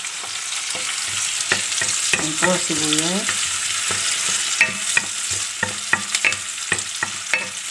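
Garlic and onion sizzling in hot oil in a metal frying pan, with a steady hiss. A wooden spatula clacks against the pan again and again as it stirs.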